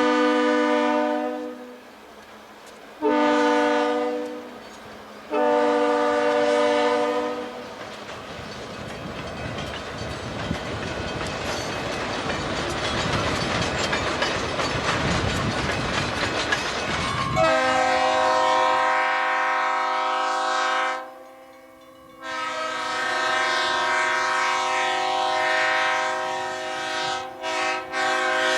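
Amtrak passenger locomotive's multi-tone air horn sounding three blasts, then the train passing close by with a rising rumble and wheel clatter over the rail joints. Near the end the horn sounds again in two long blasts.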